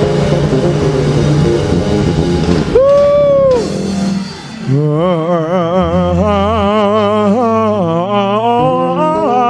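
Church band music, then a man singing into a handheld microphone: one long held note about three seconds in, and from about five seconds in, wavering, melismatic gospel runs over a low sustained accompaniment.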